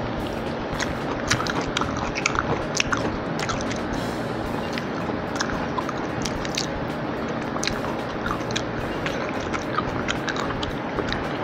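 Close-up mouth sounds of a person chewing soft fried cabbage: wet smacks and sharp little clicks, thickest in the first few seconds, over a steady background hiss and low hum.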